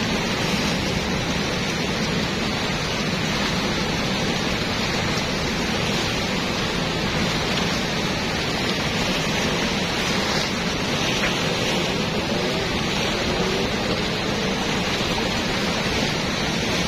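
Water pouring through the sluice gates of a river weir and churning below it: a steady, unbroken rush.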